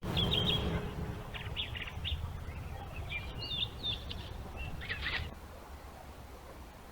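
Small birds chirping, with short high calls in quick clusters that stop about five seconds in, over the low rumble and hiss of a trail camera's microphone.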